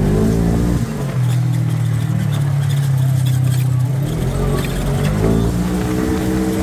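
Side-by-side UTV engine running under way, its pitch rising as it accelerates at the start and again about four and a half seconds in, with a steady drone between.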